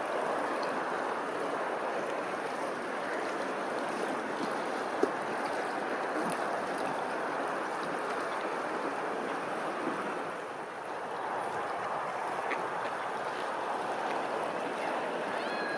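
Running water, a steady rushing flow. One short sharp click about five seconds in, and a brief high chirp near the end.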